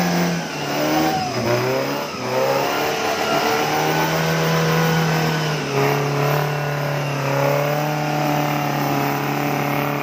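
Offroad jeep engine revving hard under load as it climbs a muddy slope, the revs dipping and rising again about a second in, then climbing once more near six seconds.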